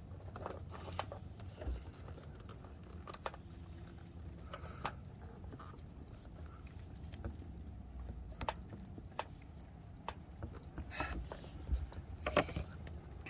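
Scattered small clicks and taps from working a crimp-style wire connector open and pressing it back down onto the wire with pliers, over a low steady rumble.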